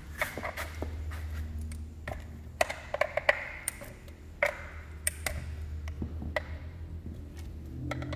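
Hand tool loosening and taking out the bolts that hold the engine of a STIHL FS 220 brushcutter: irregular metallic clicks and clinks, with a few sharper knocks in the middle, over a low steady hum.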